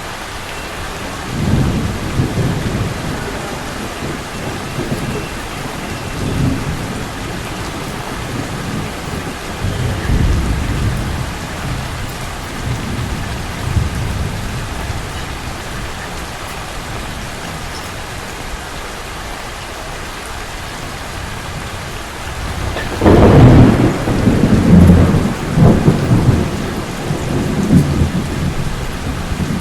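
Steady rain hissing, with low rumbles of thunder early on and a loud peal of thunder about 23 seconds in that rolls on in several surges for about five seconds.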